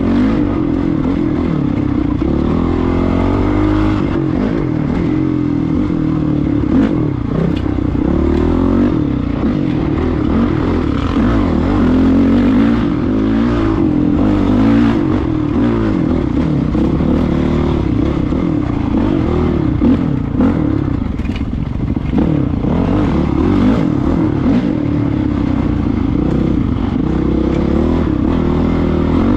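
Dirt bike engine running on the trail, its pitch rising and falling again and again with the throttle, with clatter and knocks from the bike over rough ground.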